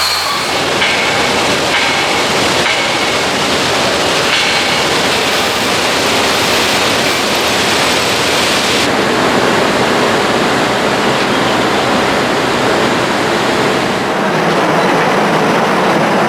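Steady, loud hiss and rumble of industrial machinery, with no distinct strokes or rhythm. Its tone shifts abruptly about 3, 4, 9 and 14 seconds in, as the ambience jumps between shots.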